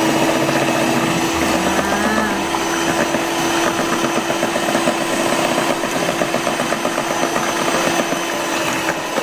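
Electric hand mixer running steadily with its beaters whisking through thin batter, a constant motor hum and whirr.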